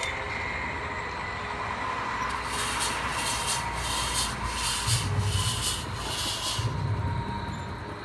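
Fog machine hissing out fog in a run of short pulses lasting about four seconds, over a steady rushing background with a few low rumbles.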